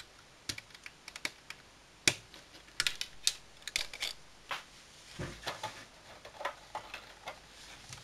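Irregular small clicks and taps of snap-together circuit-kit parts and metal alligator clips being handled and connected on a plastic base grid, with a duller knock about five seconds in.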